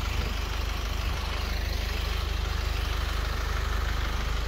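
An engine idling steadily, a constant low rumble with no change in speed.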